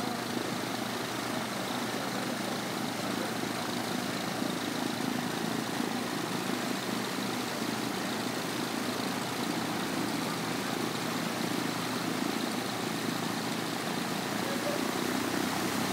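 Piper PA-28-140's four-cylinder Lycoming O-320 engine and propeller idling steadily.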